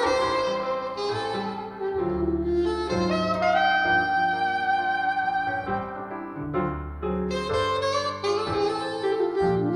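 Soprano saxophone playing a slow jazz ballad melody with long held notes and slides between them, over piano chords and bass notes.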